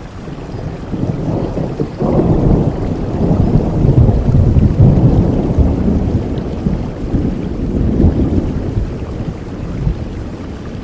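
Thunder rumbling over steady rain: a low rumble breaks in suddenly about two seconds in, rolls on loudest around the middle, then slowly dies away.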